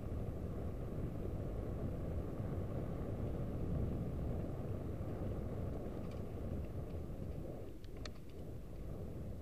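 Steady low rumble of a mountain bike being ridden, picked up by the bike's camera: wind on the microphone and tyre noise on the trail. A couple of faint clicks come near the end.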